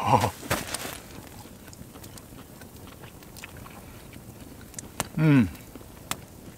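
A man biting into a fried bratwurst in a bun and chewing it, with a short falling 'mmm' of enjoyment about five seconds in. A campfire crackles with scattered small snaps.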